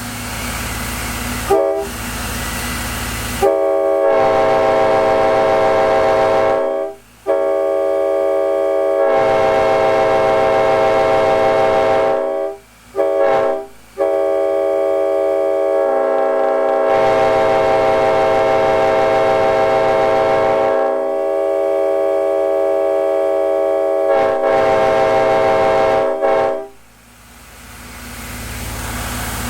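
Nathan Airchime K5LLB five-chime locomotive air horn, assembled from mixed parts (two-piece 1L bell, narrow-font 1, 2 and 4 bells, raised-letter 3B bell), sounding its low chord in several long blasts with a few short toots between them. A steady mechanical hum fills the first few seconds before the horn starts.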